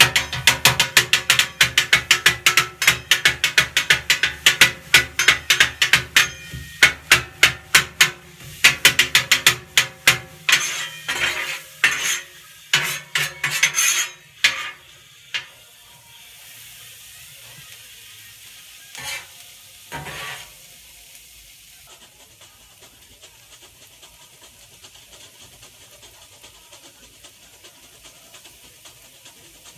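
Two steel spatulas chopping thin-sliced beef on a Blackstone flat-top griddle: rapid metal-on-metal clanks, about four or five a second, each ringing briefly. The chopping stops about halfway through, leaving a faint sizzle from the griddle.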